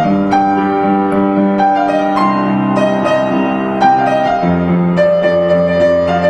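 Piano played with both hands: a slow melody over held lower chords, the notes left to ring on into each other.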